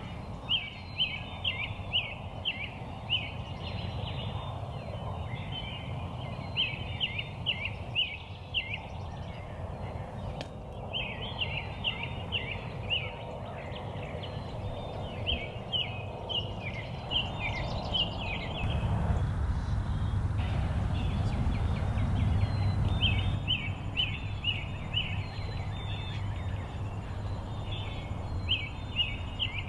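A bird calling outdoors in repeated phrases of quick, high notes, one phrase every few seconds with a longer pause midway, over a low steady rumble of background noise.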